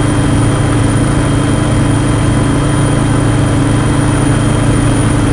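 Aircraft engine running steadily on board during flight: a loud, constant low hum that does not change.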